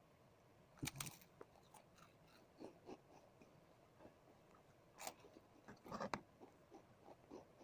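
Near silence broken by scattered faint clicks and crackles close to the microphone, the most distinct about a second in and again around five and six seconds in.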